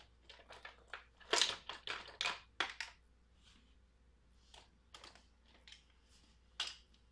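Hard plastic parts of a Fisher-Price Imaginext Shark Bite Pirate Ship toy clicking and rattling as it is handled: faint, irregular short clicks and scrapes, a few sharper ones scattered through.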